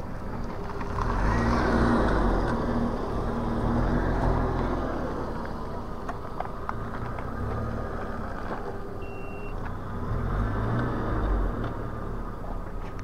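Riding a Hiboy S2 Pro electric scooter: wind buffeting the microphone over a steady wheel-and-motor rumble, swelling louder twice. There is a short high beep about nine seconds in.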